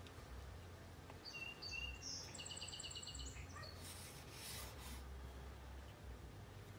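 A small bird singing: a few short high whistled notes, then a quick trill about two seconds in, over a faint steady hum. A brief soft hiss follows about four seconds in.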